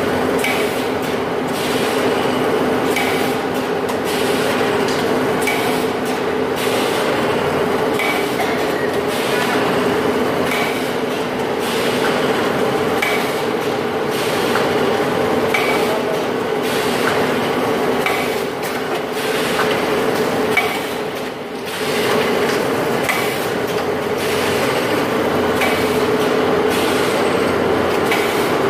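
Automatic atta (wheat flour) pouch packing machine with screw conveyor and auger filler running: a steady mechanical hum with a regular sharp clack about every two and a half seconds, one per machine cycle.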